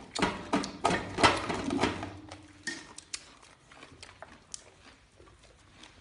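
Eating sounds at a meal: a quick run of clicks and knocks for about two seconds, then scattered light ticks, as of chopsticks against bowls and chewing.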